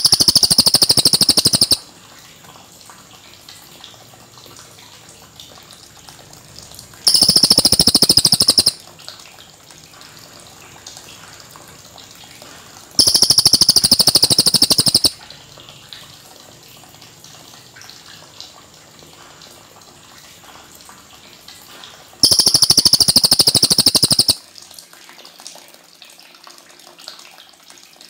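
Cililin songbird singing fast rolling trills, high-pitched. The trills come in bursts of about two seconds, four times, with pauses of several seconds between them.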